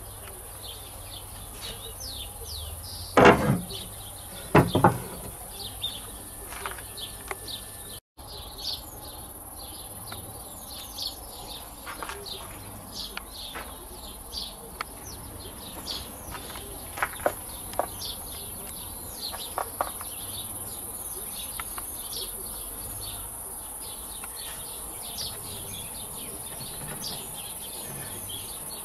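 Small birds chirping continually over a steady high hiss, with two sharp knocks about three and five seconds in and a few lighter clicks later.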